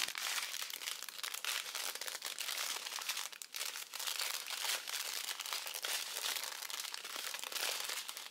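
Small plastic bags of round diamond painting drills crinkling and crackling continuously as they are handled and shuffled.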